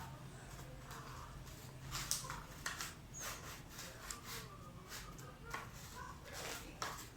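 Scattered light clicks, taps and rubbing of small parts being handled and fitted together.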